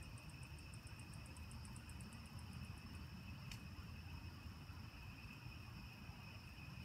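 Faint night crickets trilling steadily. A very high, fast ticking of about seven pulses a second runs alongside until it stops about three seconds in, and there is a single sharp click about halfway through.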